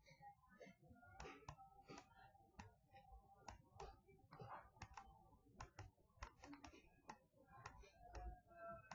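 Near silence broken by faint, irregular clicks and taps of a stylus on a pen tablet as words are handwritten.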